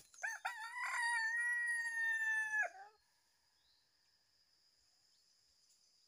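A junglefowl rooster crowing once: a single long crow of about two and a half seconds that rises at the start, holds level and drops away at the end. A faint high insect buzz follows.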